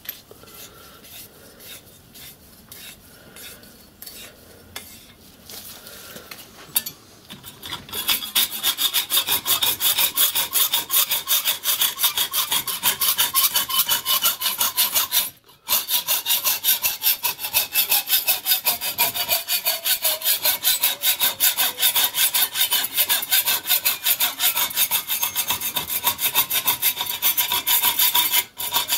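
Hacksaw cutting through brass plate clamped in a bench vice: back-and-forth strokes, light at first, then fast, steady and loud from about eight seconds in, with one brief pause midway.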